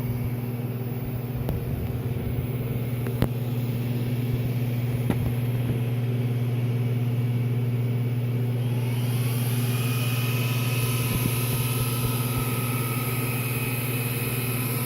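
Steady electrical hum and fan noise from a water-chilled RF amplifier bench with its 48 V DC power supply, with a few faint clicks. About nine seconds in, a whine rises in pitch and then holds steady alongside more fan hiss, as the amplifier is driven toward full power and the supply comes under load.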